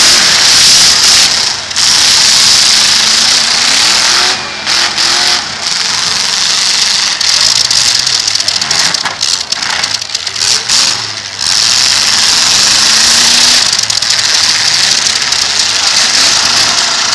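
Several demolition derby cars' engines running loud under a constant hiss, revving up and down a few times as they spin and push in the arena.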